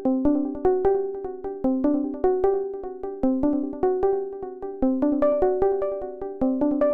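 Background music: a quick, repeating melody of plucked or struck synth-keyboard notes.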